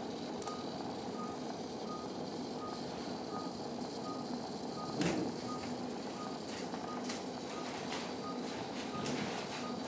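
Patient monitor under anaesthesia beeping steadily with the dog's pulse, short beeps at one pitch about two a second, over a steady operating-room hum. A sharp click comes about five seconds in.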